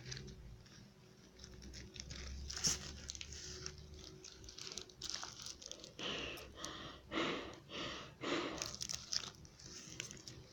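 Faint crinkling and rustling as a taped-together homemade gas mask is handled. About six seconds in, it is held over the face and a run of quick, noisy breaths is drawn through it.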